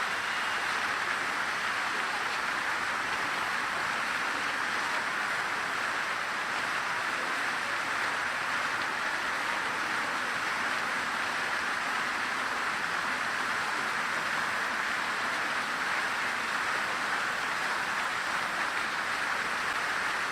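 Fountain water splashing and pattering steadily into its basin.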